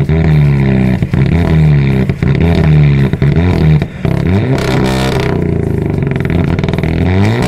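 Volkswagen Golf R's turbocharged four-cylinder engine revved in repeated throttle blips. Its pitch jumps up and falls away each time, with short sharp cracks in between, and it climbs again near the end.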